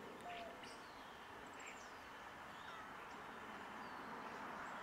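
Quiet outdoor ambience: a steady low hiss of background noise with a few faint bird chirps scattered through it.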